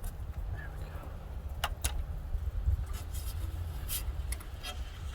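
Hands undoing the old LED light's wiring: a few sharp clicks and small knocks over a steady low rumble.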